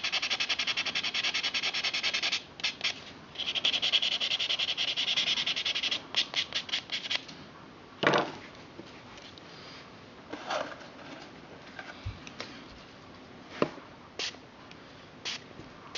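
Nail buffer block rubbed rapidly back and forth over a natural fingernail, roughing off its dead surface layers so a patch will stick. Two runs of quick strokes with a short break between, a few single strokes, and then the rubbing stops about seven seconds in, leaving only a few light taps and handling sounds.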